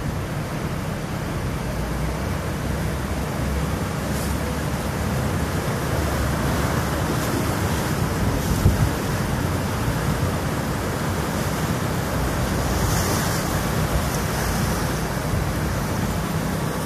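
River water rushing out under a dam's tainter gates, a steady noise with wind buffeting the microphone and a low rumble underneath. There is one brief bump a little past halfway.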